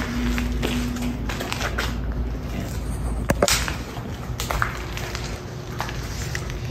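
Footsteps crunching over debris, with scattered clicks and one sharper knock about three seconds in, over a low steady rumble.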